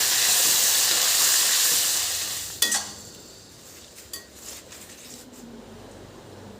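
Food sizzling loudly in a hot pan, dying down after about two and a half seconds. Then a sharp metallic clink of a utensil against the pan rings briefly, followed by quieter occasional taps.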